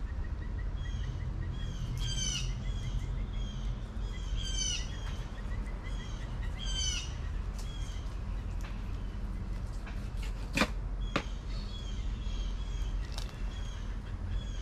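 A songbird calling repeatedly in short chirping phrases over a steady low outdoor rumble, with two sharp knocks about half a second apart about two-thirds of the way through.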